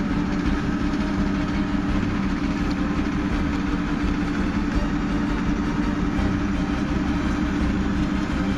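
Heavy diesel road-paving machinery (an asphalt paver working with a dump truck) running steadily, with a constant low hum and rumble.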